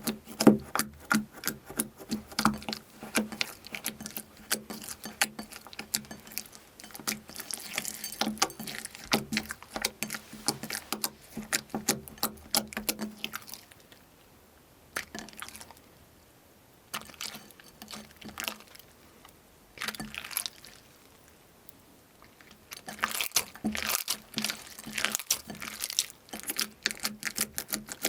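Hands pressing and squeezing crunchy slime: a dense run of crisp crackles and clicks that thins to scattered single crackles for several seconds midway, then picks up again near the end.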